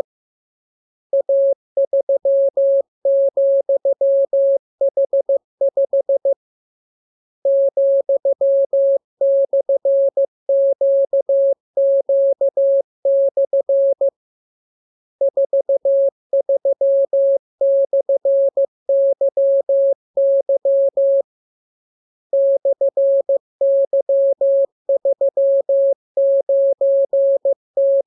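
Morse code (CW) practice signal: a single clean beep tone keyed on and off in dots and dashes, sent in runs of about six seconds separated by pauses of about a second.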